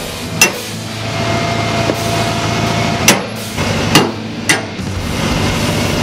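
Hammer blows on the top hinge of an aluminum dump truck tailgate as the gate is refitted: four sharp metal strikes, irregularly spaced, each ringing briefly, over a steady low hum.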